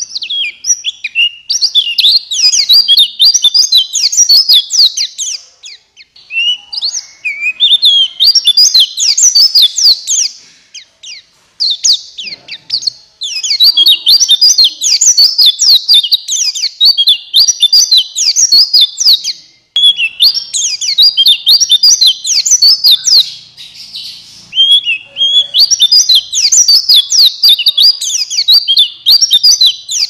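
Male pleci buxtoni white-eye singing a fast, high-pitched twittering song in bouts of a few seconds with short pauses between them. This is its full 'gacor' song, the kind played as a lure recording to start other white-eyes singing.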